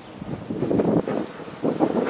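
Wind buffeting the microphone in irregular gusts, over an electric tram running along its track towards the camera.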